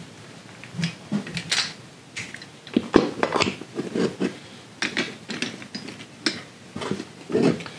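Irregular knocks and clatter of hard plastic and metal gaming-chair parts being handled as the five-star base with casters is fitted onto the gas-lift cylinder. The loudest knocks come about three seconds in and again near the end.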